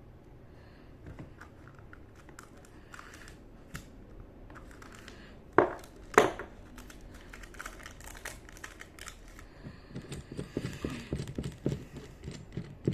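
Handling noise of an unboxed motorcycle brake master cylinder and its packaging: plastic crinkling and small clicks, with two sharp knocks about halfway through and a run of quick light rattling clicks near the end.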